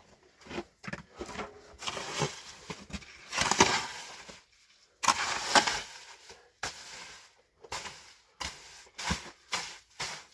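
A run of irregular knocks and scraping noises, loudest about three and a half and five seconds in.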